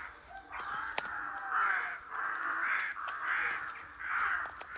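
Crows cawing over and over, one harsh caw after another about every half second.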